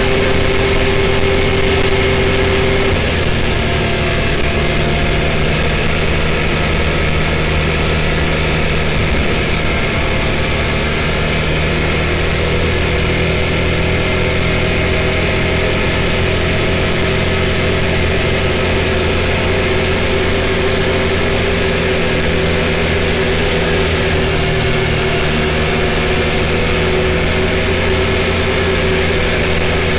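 Can-Am Maverick X3 side-by-side's turbocharged three-cylinder engine running at a steady cruising speed on pavement, with road and wind noise mixed in.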